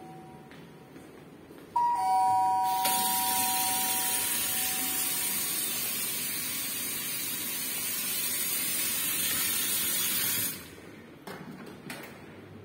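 Water running from a kitchen mixer tap into a stainless steel sink and down the drain: a steady hiss that starts suddenly about two seconds in and stops about ten and a half seconds in.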